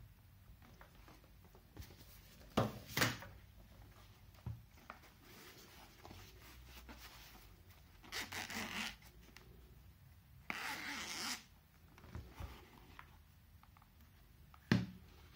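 Zipper of a camera carrying case being unzipped in two long rasping pulls, about eight and ten and a half seconds in. A few sharp knocks come from the case being handled, the loudest just before the end.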